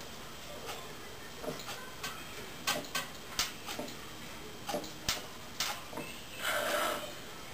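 Gulping swallows as a can of Coke is chugged: a run of short, irregular clicks, followed by a longer breathy sound about six seconds in.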